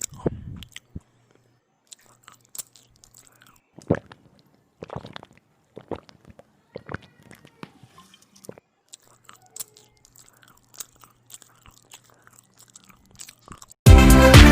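A person chewing and biting bread with ham and tomato, close to the microphone: scattered short, quiet clicks and mouth noises. Loud electronic music cuts in suddenly near the end.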